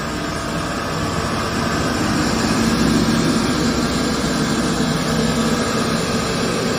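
A 400 mm wide sanding and wire-drawing polishing machine running steadily: an even machine hum with a layered whine, swelling a little a few seconds in.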